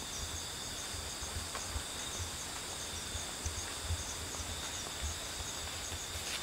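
Insects chirping steadily in the vegetation: a continuous high buzz with a chirp repeating a few times a second. Underneath is faint, irregular low thumping.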